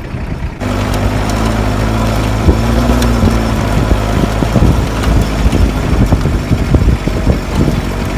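A 4x4 vehicle's engine running steadily as it drives slowly along a rough, rocky dirt track, with knocks and rattles from the bumps. The engine sound starts suddenly about half a second in.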